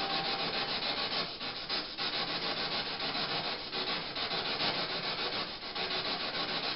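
Steady hiss of static with a slight flutter, dipping briefly a few times.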